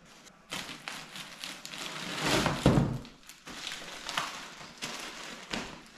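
Plastic-wrapped parts rustling and crinkling as they are handled and lifted out of a cardboard shipping box, with a louder thump about two and a half seconds in.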